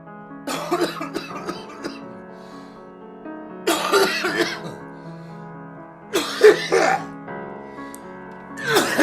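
A person coughing in four hacking bouts, a smoker's cough, over background music with held chords.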